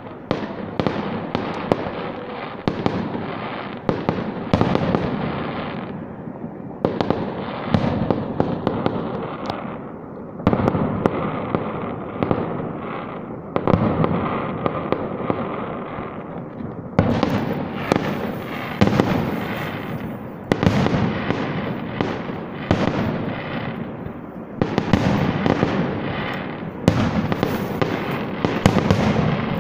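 Aerial fireworks salute going off: rapid runs of bangs and crackling that come in clusters a few seconds long, with short breaks between them.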